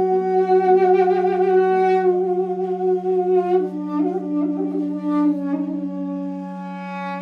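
Armenian duduk playing a slow melody: a long held note, then a step down with quick ornaments about four seconds in, settling on another long held note, over a steady low drone.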